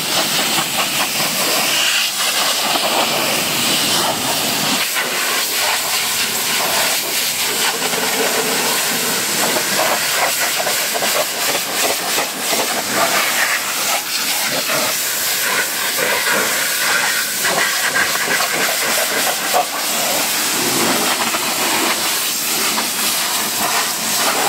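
High-pressure water jet from a car-wash spray lance, a loud steady hiss with spattering as it blasts dirt off a car's bodywork, door sill and wheel arch.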